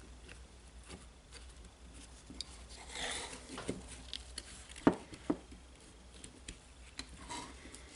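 Parts of a Makita DDF484 cordless drill being handled and fitted together by hand: scattered light clicks and rustling, with two sharper knocks about five seconds in.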